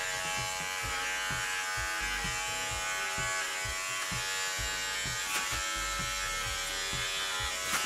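Electric hair clipper with its guard removed, buzzing steadily as it trims the short hairs at the sideburn, around the ear and at the nape.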